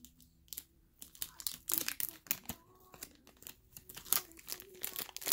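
Thin plastic toy wrapper crinkling and tearing as it is pulled open by hand, in a run of quick irregular crackles.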